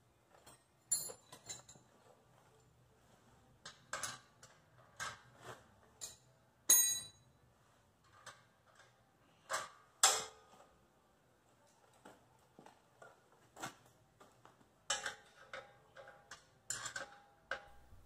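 Irregular metallic clicks and light clinks, a few ringing briefly, as hands handle a bicycle's rear axle, hub and chain; the loudest comes about two-thirds of the way through.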